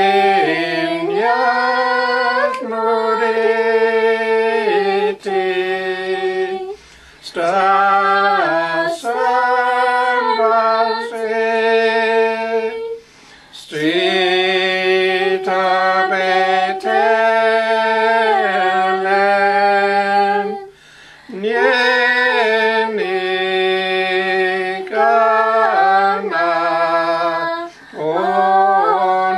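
Unaccompanied hymn sung in the Carrier (Dakelh) language by a small group of men's and women's voices, in slow phrases of long held notes with brief pauses between phrases.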